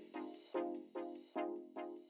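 Background music: a soft, pitched chord struck about twice a second, each note starting sharply and fading away.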